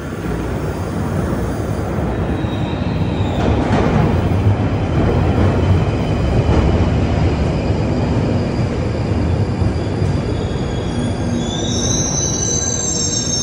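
A London Underground 1995 Stock Northern line train running into the platform from the tunnel, its heavy rumble growing as it draws in. About eleven seconds in, high-pitched wheel squeal starts as it slows to stop.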